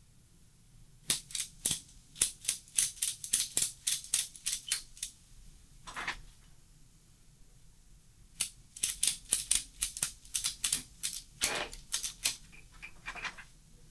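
Ratchet wrench clicking in two runs of quick, sharp clicks, about four a second, as bolts are worked loose on a motorcycle frame, with a duller knock between the runs.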